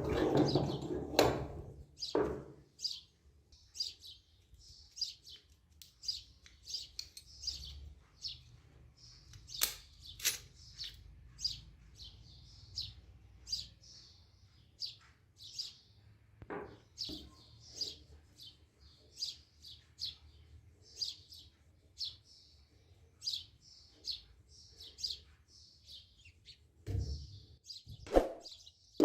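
Small birds chirping in short, high calls, about one or two a second, with a few knocks in the first two seconds and near the end.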